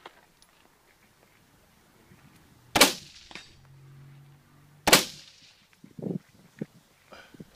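Two rifle shots about two seconds apart, each with a short echoing tail, followed by a few fainter knocks near the end.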